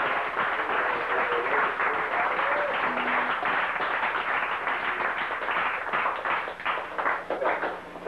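Audience applauding after a song ends, thinning to a few scattered claps near the end.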